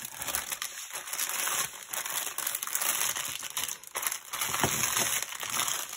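Small plastic bags of diamond-painting drills crinkling and rustling as they are handled and pushed about on the canvas.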